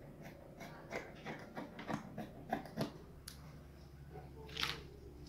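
Fabric scissors snipping through lace, a quick run of short snips, then a louder brief rustle of the fabric near the end.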